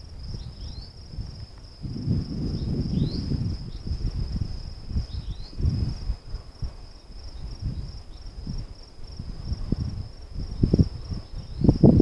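Crickets chirping in a continuous, finely pulsing high trill, with a few short falling chirps. Low muffled rumbles come and go underneath and are loudest about two to four seconds in.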